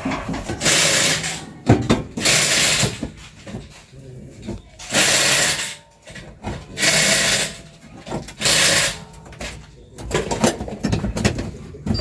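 A power tool run in short bursts, about five of them, each under a second long, with light clatter between them.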